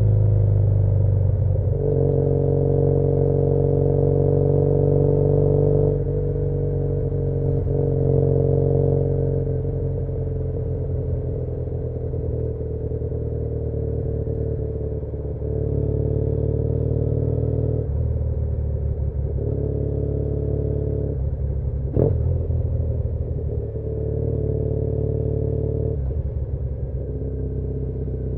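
2013 Triumph Bonneville T100's parallel-twin engine running under way, its pitch falling at first and then stepping up and down as the throttle opens and closes. There is one sharp click about 22 seconds in.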